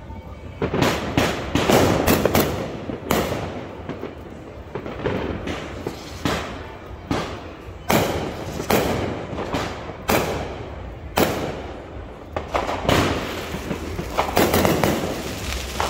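Consumer aerial fireworks bursting: a string of irregular sharp bangs, each trailing off in echo, with clusters of rapid bangs about a second in and again near the end.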